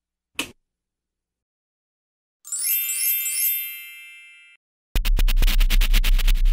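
End-card sound effects: a brief click, then a bright chiming jingle that rings out and fades over about two seconds, then a fast electronic pulsing beat, about ten hits a second over a deep steady tone, starting near the end.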